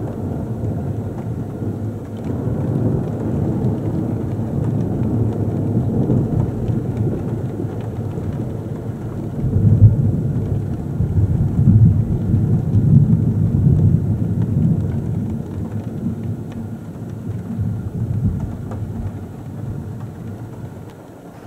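Long rolling thunder rumble that swells to its loudest about halfway through and then slowly dies away, with rain falling.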